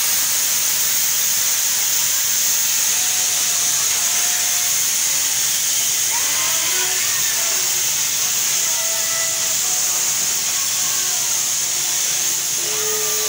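A steady, loud, high-pitched hiss, even and without rhythm, that holds level throughout.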